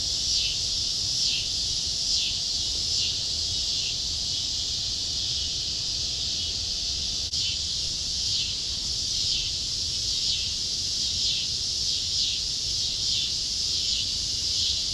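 A chorus of insects shrilling continuously, swelling in pulses about once a second, over a steady low rumble.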